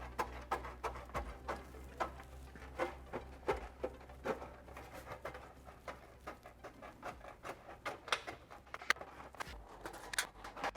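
Tin snips cutting through a sheet-metal gutter, a rapid, irregular run of short crisp snips and clicks as the blades bite and close.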